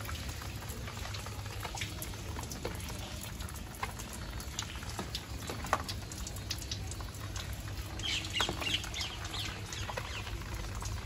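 Steady rain falling and pattering on rooftops, with scattered sharp drips. About eight seconds in, a brief flurry of high bird chirps.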